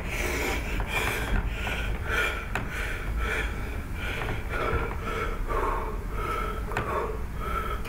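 A man imitating a motorbike engine with his voice and breath, a rhythmic series of rasping vocal pulses, about two a second.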